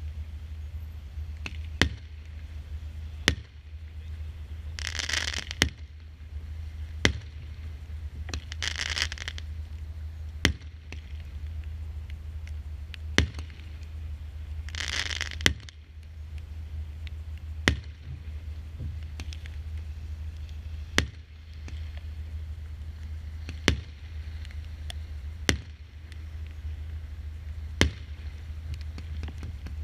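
Consumer firework battery firing shot after shot, a sharp bang about every two seconds as each star shell bursts, with a few longer hissing bursts in between. A steady low rumble runs underneath.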